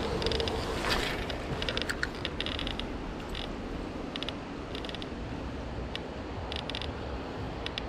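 Fishing reel being cranked, giving short runs of rapid, light ratcheting clicks over a steady hiss of wind and water.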